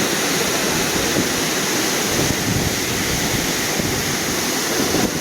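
Waterfall running strong with snowmelt, a steady, loud rush of falling water.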